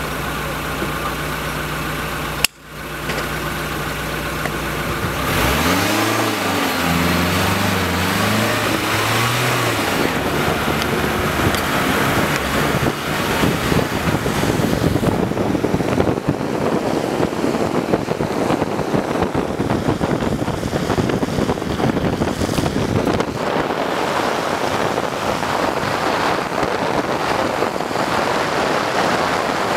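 Car engine idling, then revving up through a few gear changes as it accelerates, giving way to a steady rush of wind and road noise at speed.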